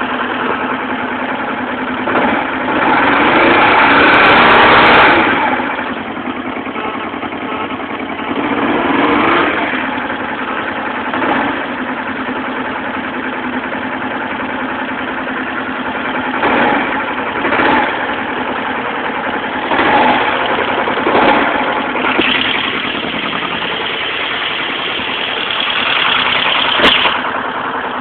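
Kawasaki ER-5's parallel-twin engine idling, with throttle blips: a longer rev about two to five seconds in, several short blips through the middle, and a held raised rev near the end.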